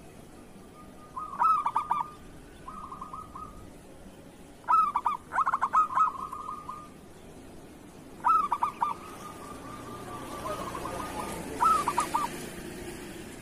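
Zebra dove (perkutut) singing: four bursts of its rapid, stuttering cooing song, with softer trailing coos between them. A faint hiss rises toward the end.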